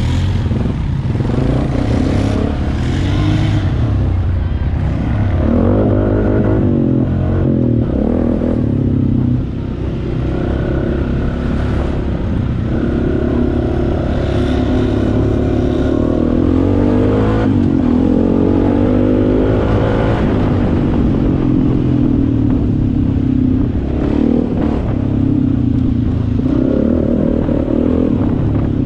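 Honda Foreman ATV's single-cylinder engine running under way, its note rising and falling again and again with the throttle.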